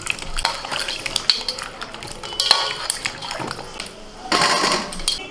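Cut potato chunks being washed by hand in a stainless-steel bowl of water: splashing and swishing, with the pieces knocking against the metal. A little past four seconds in there is a louder clatter as pieces are lifted out into an empty steel bowl.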